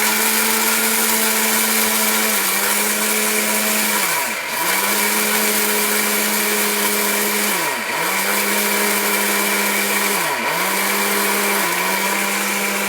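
Heavy-duty mixer-grinder blender running continuously, grinding dry gram dal into fine besan flour. The motor holds a steady hum whose pitch briefly sags three times as the load shifts in the jar. This is the final run to finish the flour to a fine powder.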